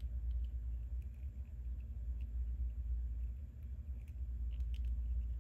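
Faint, sparse clicks of small resin-printed parts being handled and pressed together, over a steady low rumble.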